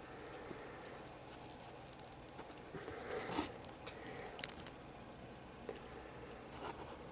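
Faint handling of plastic model-kit pieces being pressed together: light rustling with a few small clicks, the sharpest about four and a half seconds in.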